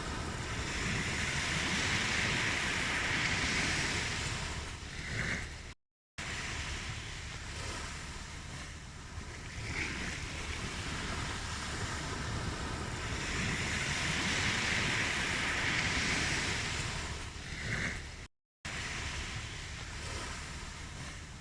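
Ocean waves breaking and washing ashore in slow surges that swell and ease. The recording cuts out for a moment twice.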